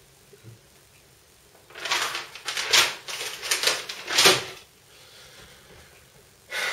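Paper being handled: a string of loud rustling, crinkling bursts over about three seconds, then another short burst near the end.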